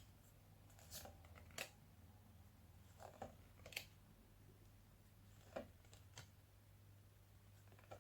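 Near silence with a faint steady hum and a handful of faint, short clicks and rustles, consistent with paper sound cards being handled and shown.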